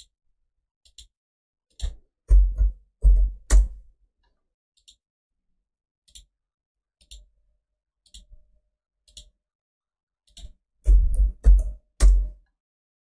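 Computer mouse and keyboard clicks: scattered light mouse clicks, with two clusters of heavier key taps thudding through the desk, about two seconds in and again near the end.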